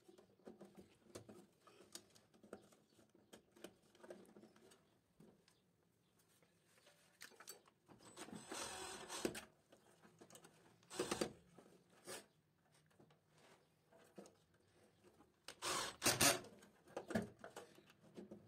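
Cordless drill-driver run in several short spurts, tightening the terminal screws of a phase-monitoring relay, the longest about a second and a half near the middle and a louder pair near the end. Small clicks and rustles of wires being handled lie between the runs.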